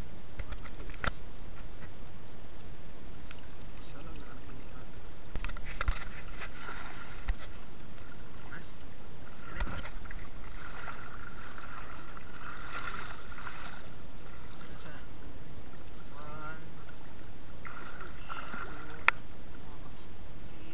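Shallow water sloshing and lapping, with a steady noise underneath and a few sharp knocks scattered through.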